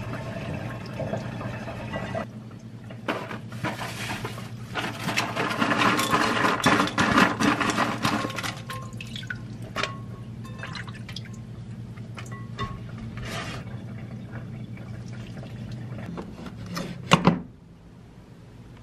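Tap water running and splashing as soybean sprouts are rinsed by hand in a plastic bowl at a stainless steel sink, loudest a few seconds in. Then lighter handling sounds as sprouts and sliced shiitake mushrooms go into a metal rice-cooker pot, and a sharp knock near the end.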